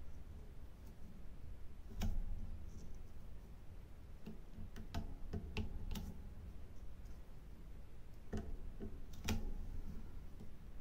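Irregular light ticks and clicks of a diamond-painting drill pen picking up resin drills and pressing them onto the canvas, about a dozen spread unevenly over a faint low hum.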